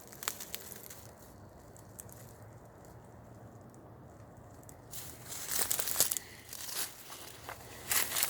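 Footsteps crunching and crackling through dry leaf litter and brush, starting about five seconds in after a quiet stretch.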